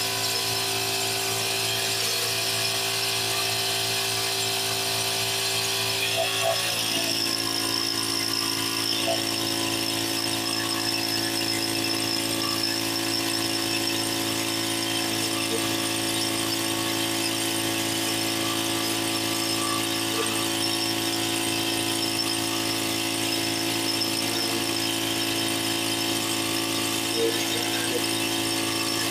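Petrol pressure washer's small engine running steadily with its pump whine. About six seconds in, the engine pitch drops slightly and a high hiss joins and holds, as the spray is turned on and the engine takes the load.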